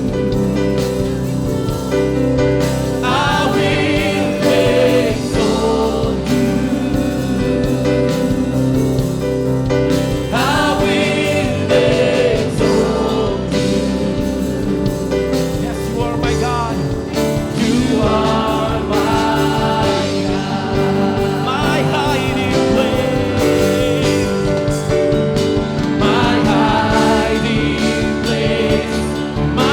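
Live contemporary worship music: a band with keyboard pads plays a slow song while a group of voices sings.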